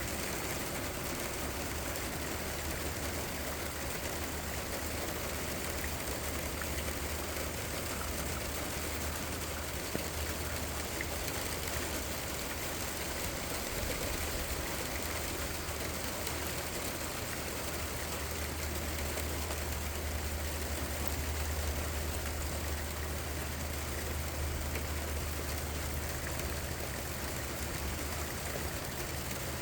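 Steady rain falling, an even hiss with no pauses, over a constant low hum that gains a second, slightly higher tone about three-quarters of the way in.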